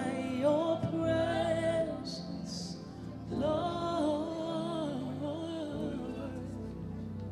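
Slow worship music: a voice sings two long, wavering phrases over held instrumental chords.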